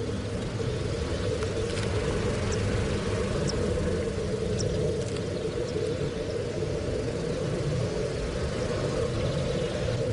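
Steady wind rumbling on the microphone, with a few faint short high chirps in the first half.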